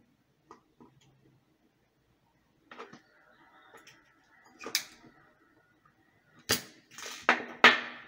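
Hand-held spring-loaded desoldering pump at a circuit board: a few sharp clicks and snaps as it is cocked and fired to suck up melted solder, the loudest near the end.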